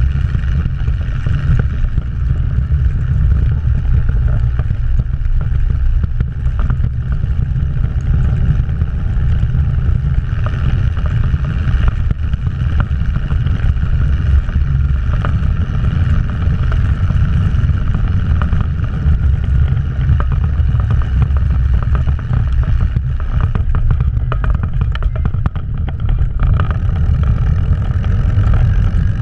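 1971 Thiokol snowcat's engine running steadily as the machine drives through deep snow, heard from on board as a low, even drone.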